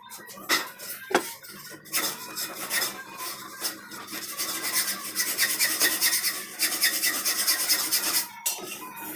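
Hand tool rasping on a thin strip of wood as it is trimmed to shape. The strokes are scattered at first, then come fast and close together through the second half.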